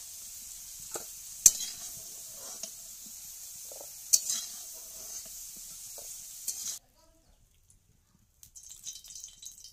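Hot oil sizzling in a metal kadai as fried potato fingers are lifted out with a metal spatula, which clanks sharply against the pan twice. The sizzle cuts off abruptly about 7 seconds in.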